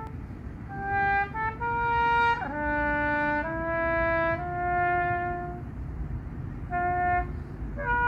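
Solo trumpet playing a slow, bugle-style call of long held single notes, with a short pause about two-thirds of the way through, over a steady low rumble.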